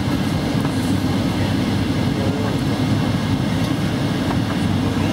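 Airliner cabin noise: the steady low rumble of the engines and airflow heard from inside the passenger cabin in flight.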